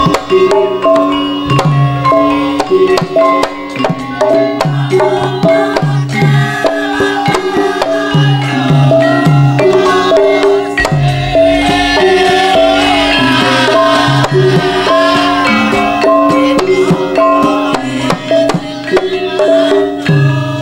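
Javanese gamelan music: a kendang hand drum plays bending, punchy strokes under metallophones repeating a melody of struck, ringing notes. A higher wavering melody rises over the ensemble in the middle.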